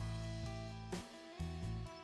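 Soft background music with held guitar-like notes, fading briefly about a second in.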